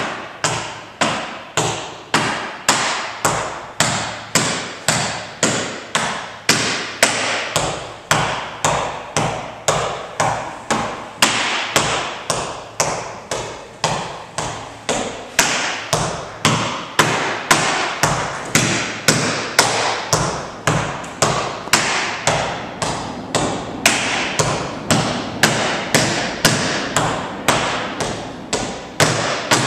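Tap shoes striking a wooden floor in a continuous rhythmic warm-up pattern: quick runs of taps with louder accents coming about every three quarters of a second.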